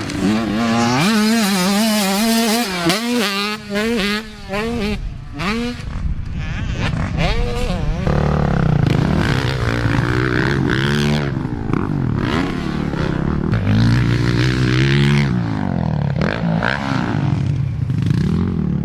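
Motocross dirt bike engines revving hard and backing off again and again as they ride the track, the pitch rising and falling. About eight seconds in, a lower, heavier engine note takes over.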